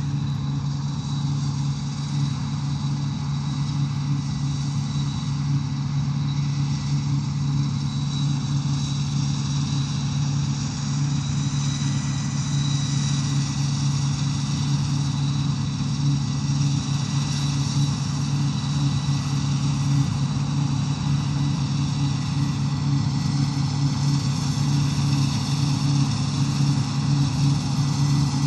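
Steady engine drone, a low hum with a faint high whine above it, holding even throughout.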